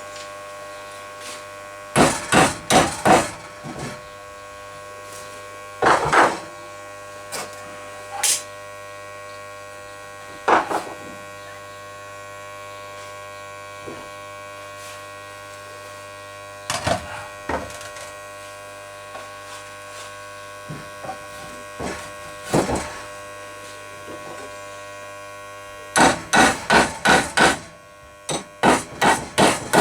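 48 oz ball-peen hammer striking the rebar hook: a quick group of four blows about two seconds in, single blows spread through the middle, and a fast run of about eight near the end. A steady hum runs underneath.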